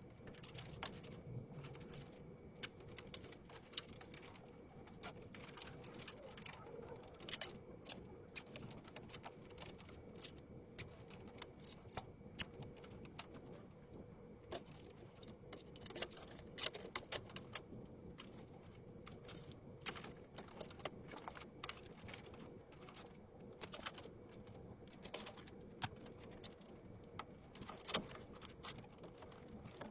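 Irregular small clicks and taps of PC parts being handled and fitted together, a few sharper than the rest, over a faint steady hum.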